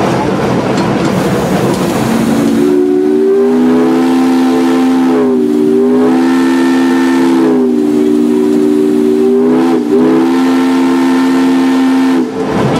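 The steam whistle of No. 6 Climax, a geared steam locomotive, comes in about two seconds in over the locomotive's running noise. It is held for about ten seconds as a loud chord of several notes, its pitch dipping briefly three times before it cuts off.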